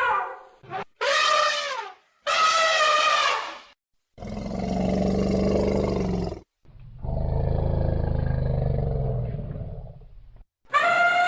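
Elephant calls: two short high trumpets, then two long low roars, then another trumpet starting near the end. Each call is cut off abruptly, with dead silence between them.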